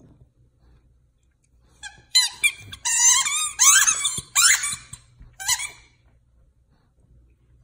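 A dog toy's squeaker squeaking over and over as a dog chews it. It is a rapid, high run of squeaks lasting about four seconds, starting about two seconds in.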